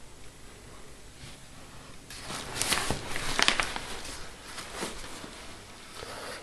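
Parcel packaging being handled and opened by hand: irregular rustling and crackling that starts about two seconds in, is loudest shortly after, and tails off.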